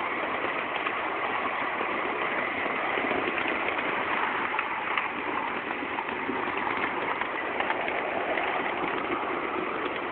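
Ride-on miniature railway train running along its track, a steady mix of locomotive and rolling wheel noise.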